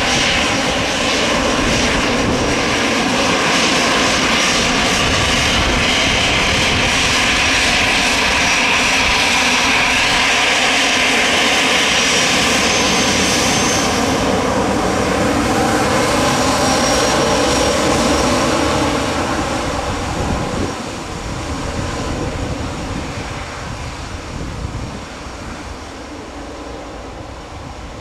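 Airbus A319 airliner's jet engines running loud and steady with a high whine, then fading away over the last third as the aircraft moves off.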